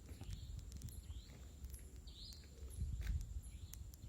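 Repeated short high chirps from small animals, about one or two a second, mixed with sharp thin clicks, over a low rumble and a steady faint high whine.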